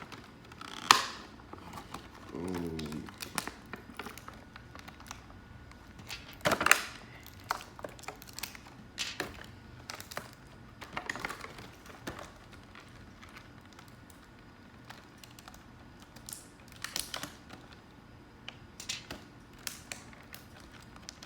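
Plastic toy packaging and accessories being handled: scattered clicks, taps and crinkling, irregular and spread out, with the sharpest clicks about a second in and near seven seconds.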